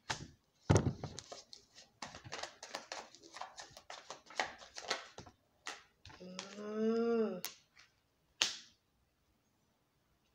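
Tarot cards being shuffled and handled at a table: a run of quick, irregular clicks and flicks as the cards are riffled and tapped. About six seconds in, a person's voice hums one short note that rises and falls.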